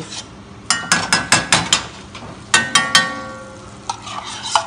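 A metal spoon rapping against a stainless steel frying pan, ringing with each hit: a quick run of about six taps, then three more about a second later. Butter is beginning to sizzle in the hot pan.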